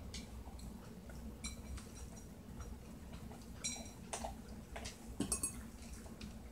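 Pembroke Welsh Corgi puppy eating dry kibble from a metal bowl: scattered clicks and clinks as the kibble and bowl knock together, some with a short metallic ring, loudest about five seconds in. A steady low hum runs underneath.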